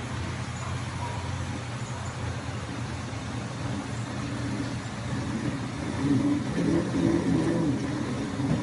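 Talsa spiral dough mixer running, its motor humming steadily as the spiral hook kneads dough in the bowl. The sound grows louder about six seconds in.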